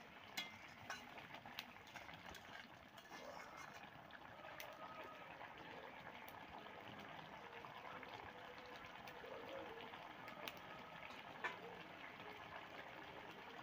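Tengra fish curry boiling in an iron kadai: a faint steady bubbling with scattered small pops.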